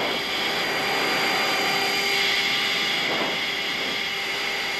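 Steady aircraft cockpit noise during low-level flight: an even rushing hiss with a few level hums running through it.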